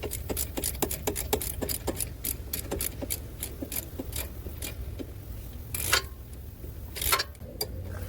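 Hand ratchet wrench clicking in a rapid, even train of about five clicks a second; the clicking stops about five seconds in. Two short, louder scraping rattles follow.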